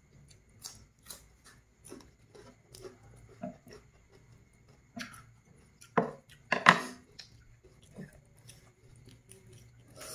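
Crisp lettuce leaves rustling and crinkling as they are handled and folded into wraps, with light clicks of chopsticks picking at fish. The loudest crinkles come about six to seven seconds in.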